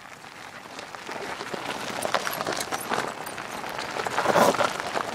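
Downhill trike wheels rolling over a gravel track: a steady crunching and rattling with many small clicks, getting louder about four seconds in as a trike comes close.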